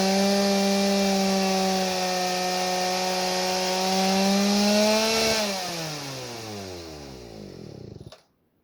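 Chainsaw engine on a homemade chainsaw sawmill running at steady high revs, cutting through white oak. About five seconds in the cutting noise drops away and the engine winds down, its pitch falling steadily, then it stops abruptly just before the end.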